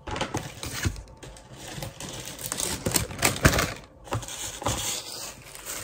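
Cellophane wrapping crinkling and rustling while things are handled and set down on a table, with irregular light knocks and clicks; the sharpest knock comes about three and a half seconds in.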